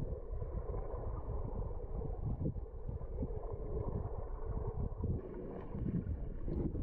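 Low, muffled churning of water heard underwater, with uneven surges, from a swimmer's freestyle strokes with hand paddles.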